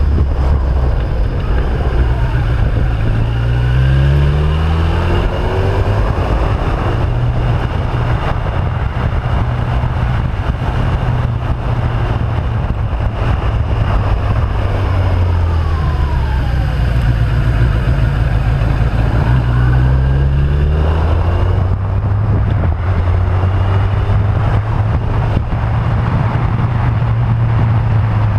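Motorcycle engine running under way with wind noise, its revs climbing a few seconds in, easing off, and climbing again past the middle as it accelerates out of the bends.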